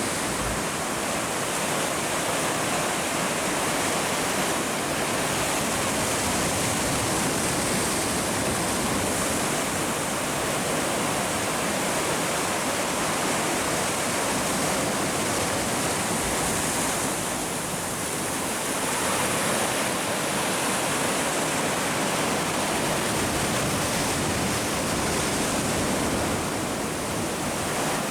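Steady rush of sea surf washing against shoreline rocks, easing slightly twice.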